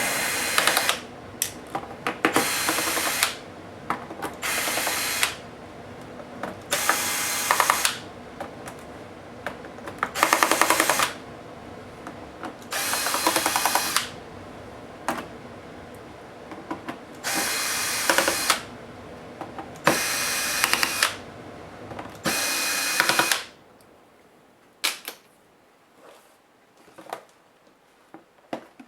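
Cordless electric screwdriver backing screws out of a laptop case: about nine short whirring runs, each about a second long, with small clicks of handling between them. Near the end the driver stops and only faint clicks and taps remain.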